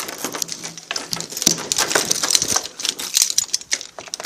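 Dense clattering and rustling: a quick run of small clicks and knocks with scraping, as things are handled and carried in through a door.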